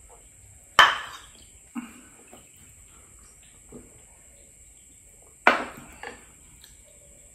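Tableware set down on a tabletop. A sharp clack about a second in, likely a ceramic bowl put down, is followed by softer clinks. A second sharp knock, likely a drinking glass set down, comes about five and a half seconds in, with a lighter one just after.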